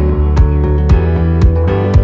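Background music with a steady beat of about two strokes a second over sustained bass notes.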